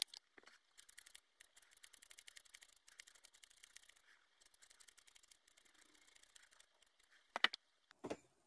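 Hair-cutting scissors snipping into a lock of hair: a fast run of small, crisp snips, with a couple of louder clicks near the end.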